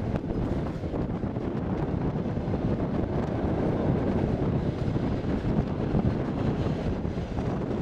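Wind buffeting a microphone held out of the open window of a moving passenger train carriage, a steady rushing noise over the low rumble of the train running on the rails.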